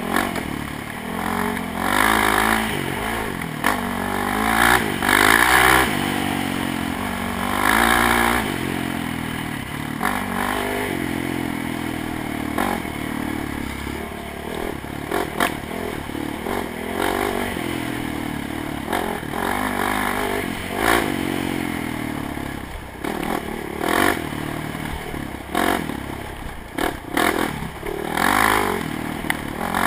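ATV engine revving up and down as it is ridden along a bumpy dirt trail, with rattles and sharp knocks from the machine going over the bumps.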